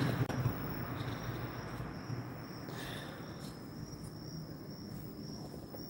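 A cricket chirping in a steady, high, unbroken trill over faint background hiss, with a faint short sound about three seconds in.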